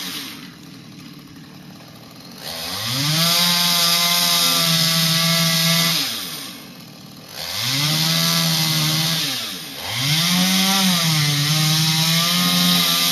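Chainsaw idling, then revved to full throttle three times for a few seconds each, dropping back toward idle between runs, as it cuts a notch into a tree trunk. The engine pitch sags and wavers a little under load during the last run.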